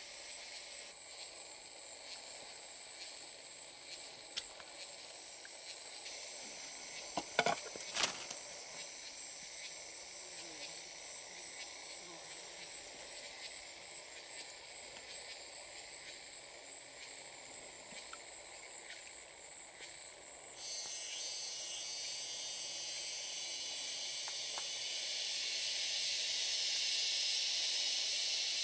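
Forest ambience with a steady, high, pulsing insect drone, broken by two sharp clicks about seven seconds in. About two-thirds of the way through the sound cuts to a louder, even hiss.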